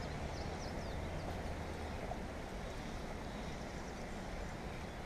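Steady rushing of a shallow river's current flowing over a riffle.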